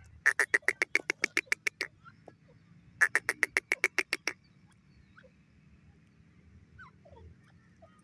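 Grey francolin calling: two runs of loud, sharp repeated notes, about seven a second, the second starting after a pause of about a second.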